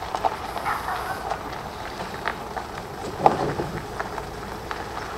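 Car driving over a bumpy dirt track, heard from inside the cabin: a low running noise with irregular rattles and knocks, and one louder knock about three seconds in.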